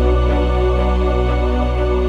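Calm new-age background music: sustained synth-like chords over a deep held bass note, changing slowly.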